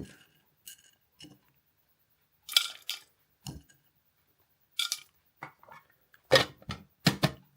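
A series of short, separate clinks and knocks from small containers and grinder parts being handled, with quiet gaps between; the grinder motor is not running.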